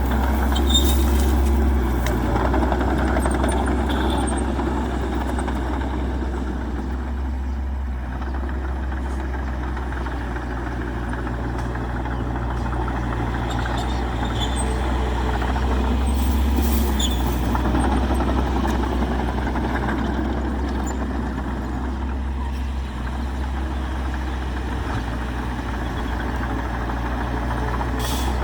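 Heavy diesel earthmoving machinery running: a steady low engine rumble that swells near the start and again about halfway through, with a few brief high metallic clinks.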